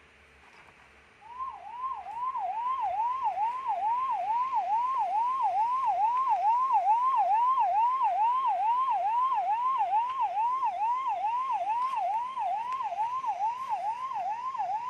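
Ambulance siren sounding in a fast yelp, starting about a second in: a rising-and-falling wail that repeats about two and a half times a second.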